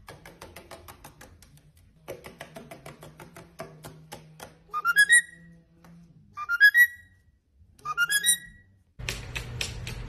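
Rainbow lorikeet's claws tapping quickly on a wooden tabletop. From about halfway through, the bird gives a short rising whistle three times, about a second and a half apart. Near the end the sound switches to a louder steady hiss with rapid ticks.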